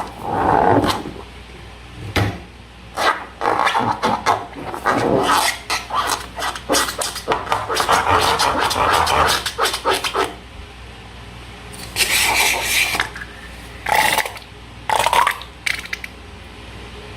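Slime being worked by hand, making irregular sticky scraping and crackling sounds in quick bursts. The bursts run densely for about ten seconds, then come as three shorter bursts near the end.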